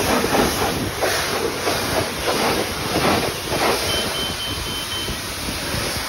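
High-pressure car wash wand spraying a car's side and wheel, a loud hissing splatter that surges in regular pulses and eases after about four seconds. A run of about five short high beeps sounds around four seconds in.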